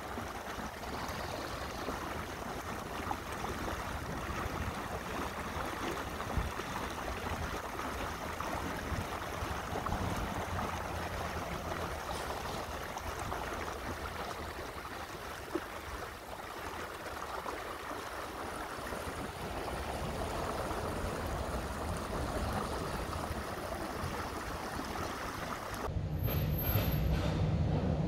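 Steady wash of water along the hull of a cruising boat under way on the canal, with a low engine hum beneath it. About two seconds before the end it changes abruptly to a louder low hum.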